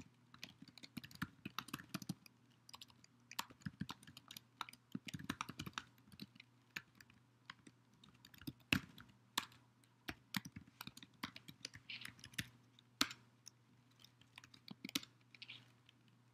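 Typing on a computer keyboard: irregular runs of key clicks with short pauses between them, over a faint steady low hum.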